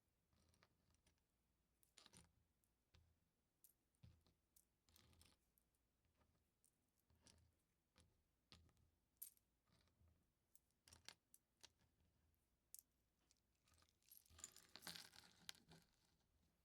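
LEGO bricks being handled and pressed together: faint, irregular clicks and taps, with a short burst of pieces clicking and rattling together near the end.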